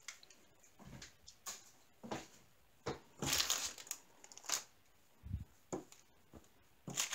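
Clear plastic packaging being handled in short, quiet rustles, the longest a little past three seconds in, with a dull thump just after five seconds as something is set down.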